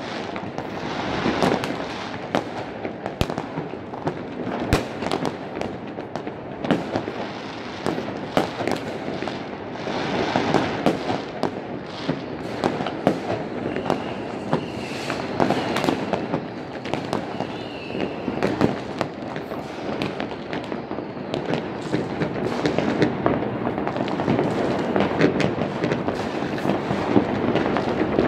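Many fireworks and firecrackers going off across a city at once: a dense, continuous run of bangs, pops and crackles, some near and some distant, with no pause.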